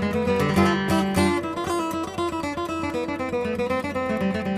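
Background music: strummed acoustic guitar, steady chords changing every second or so.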